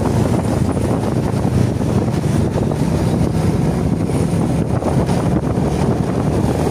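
Steady wind noise on the microphone with low, constant road and engine noise from a vehicle on the move.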